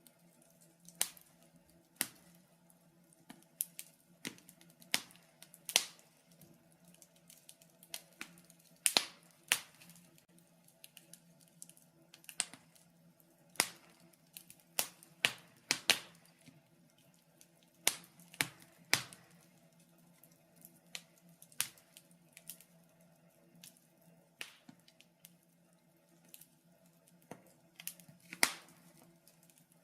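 Wood fire crackling: irregular sharp pops and snaps, roughly one to three a second and uneven in loudness, over a faint steady low hum.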